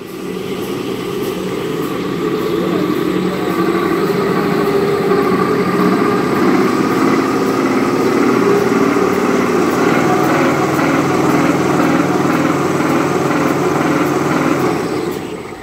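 Kitchen-towel paper roll converting machine running: a steady mechanical hum and rumble of its rollers and drive, rising in level over the first few seconds.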